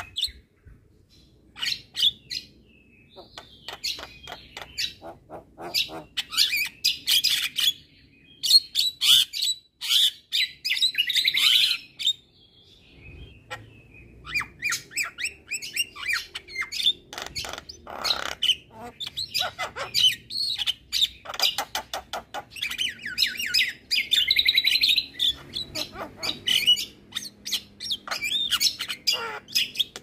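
Javan myna singing: a varied, fast run of clicks, chatters and harsh buzzy squawks in bursts, with brief pauses between phrases.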